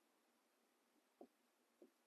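Near silence with two faint, short taps a little over a second in, half a second apart: a marker touching a whiteboard while drawing.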